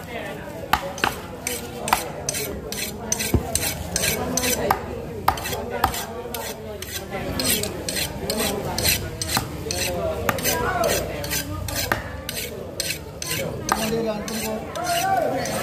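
A curved steel blade scraping the large scales off a giant mullet on a wooden board, in quick repeated strokes. A few sharper knocks stand out in the first seconds.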